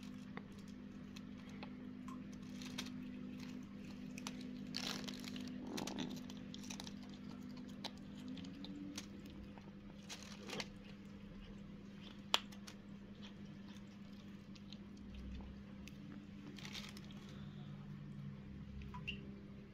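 A kitten chewing and crunching food scraps, with the black plastic bin bag crinkling as it pulls at the food. A faint steady hum runs underneath, and one sharp click about twelve seconds in is the loudest sound.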